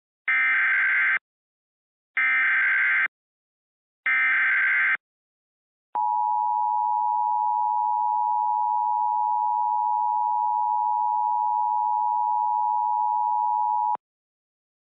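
Emergency Alert System SAME header: three short squawks of digital data, each about a second long and a second apart, encoding a civil emergency alert. They are followed by the EAS two-tone attention signal, a steady chord held for about eight seconds that cuts off suddenly.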